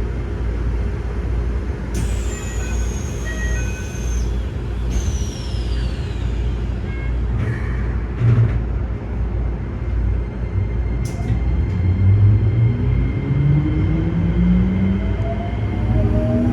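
Keikyu 1000 series electric train's traction motors and inverter under a steady low rumble, with two high whines gliding down in pitch early on and a thump about halfway. From about two-thirds in, a stack of motor tones climbs steadily in pitch as the train accelerates; this set's motor noise is billed as abnormally loud.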